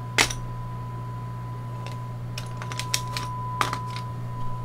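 A few sharp plastic clicks and rattles as a small screwdriver-bit case is handled and a bit taken out, irregularly spaced. Under them runs a steady 1 kHz test tone and a low hum from the CB radio receiving a signal-generator test signal.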